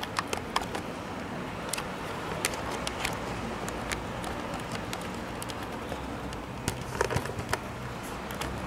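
Steady city background noise of distant traffic with a low hum, broken by scattered sharp clicks and taps, several of them bunched together about seven seconds in.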